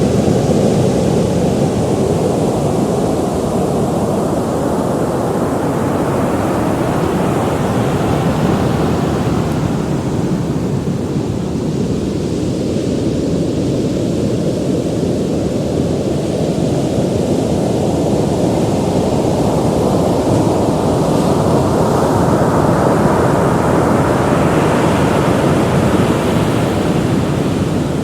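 Ocean surf: a steady rush of waves that swells as a wave breaks about eight seconds in and again about twenty-four seconds in, easing in between.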